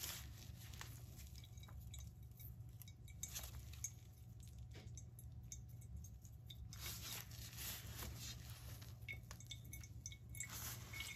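Faint squishing and rustling of a cheesecloth bundle of wet grated cassava being wrung by gloved hands, the liquid being pressed out into a bowl, with a few light clicks.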